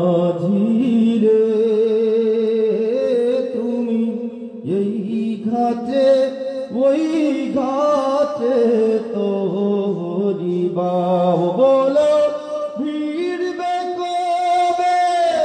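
A man singing a Bengali Islamic gojol into a microphone, a slow melody of long held, wavering notes that slide between pitches.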